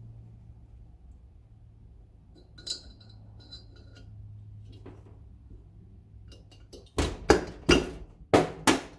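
Metal parts and tools being handled on a workbench: two light metallic clinks with a short ring, then five sharp knocks in quick succession near the end.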